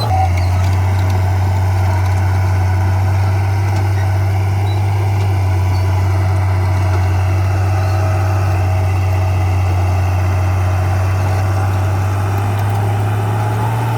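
Heavy diesel engine of earthmoving equipment running at a steady, constant speed, a loud low drone with a slight shift in pitch near the end.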